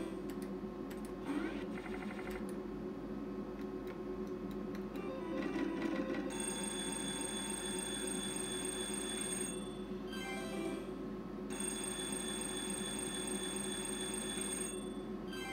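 Sizzling Hot slot machine's electronic sounds: a spin with the reels clicking to a stop in the first few seconds, then ringing, bell-like win tones as the winning lines are shown.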